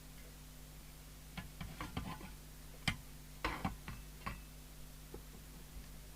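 Scattered small clicks and knocks of handling on a workbench, mostly between about one and a half and four and a half seconds in, over a faint steady mains hum.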